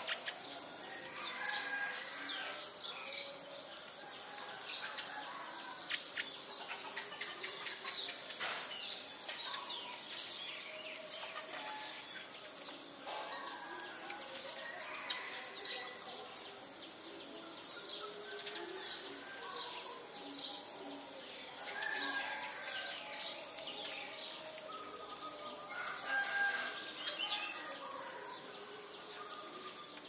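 Sparrows chirping and twittering in short scattered calls over a steady high-pitched insect drone, with a rooster crowing, loudest twice in the last third.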